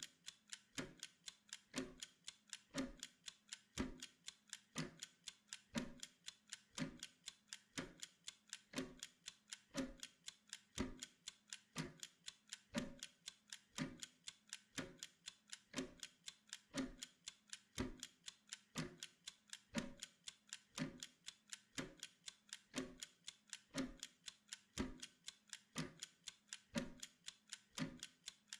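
Steady clock ticking of a Pomodoro timer, quick even ticks several times a second with a heavier tick about once a second.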